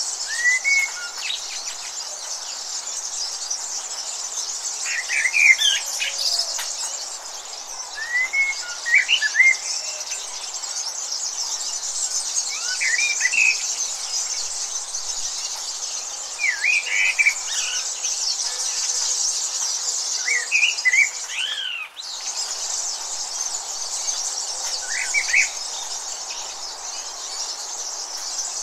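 Birds chirping in short, quick phrases every few seconds over a steady high-pitched insect chorus. The whole sound cuts out for an instant about three-quarters of the way through.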